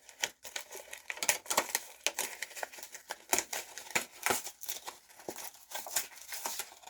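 Packaging crinkling and rustling as it is handled, with many irregular crackles and taps.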